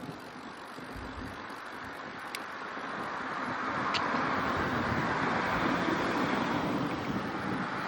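Car tyre noise on the road, swelling over several seconds as a vehicle approaches and passes, then easing near the end. Low wind rumble on the microphone about a second in.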